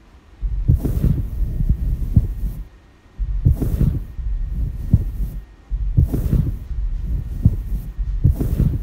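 Repeated deep thumps in loose clusters, some with a short hiss on top, pausing briefly near the start and again about three seconds in.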